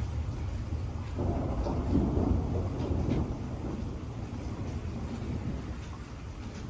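Rolling thunder over falling rain: the rumble swells about a second in and fades slowly, with a few raindrop ticks on top.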